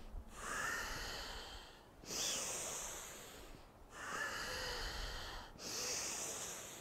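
A woman taking deep, dynamic breaths, alternating inhale and exhale: four long breaths of about a second and a half each, with short pauses between them.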